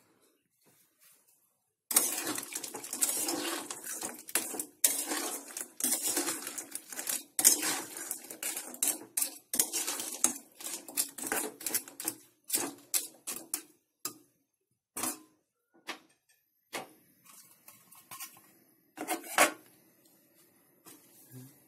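Metal spoon stirring and scraping crab pieces in a metal pan on a gas stove, a fast run of clattering strokes for about twelve seconds. Then a few separate metallic clanks follow, the loudest near the end, as the pan is covered with its lid.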